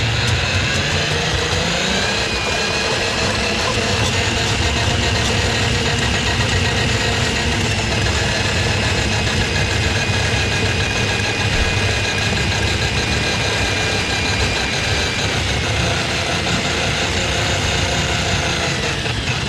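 An electric drain-cleaning machine running while clearing a kitchen drain line plugged with grease. Its motor spins up in the first couple of seconds, runs steadily, then winds down and stops at the very end.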